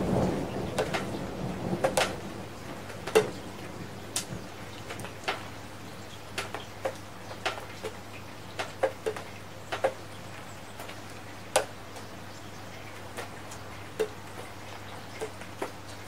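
Raindrops dripping onto a hard surface: irregular sharp ticks of single drops, roughly one or two a second, over a faint steady rain hiss. A roll of thunder dies away in the first two seconds.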